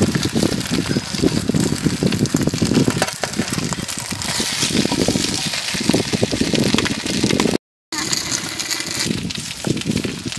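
Loud street-stall noise: chive rice cakes frying on a griddle, mixed with engine noise and voices. The sound drops out for a moment about three quarters of the way through.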